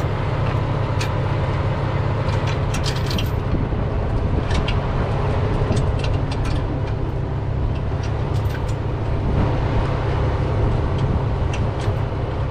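Diesel truck engine idling steadily, with scattered sharp metallic clinks of tow chains being handled at a wheel-lift crossbar.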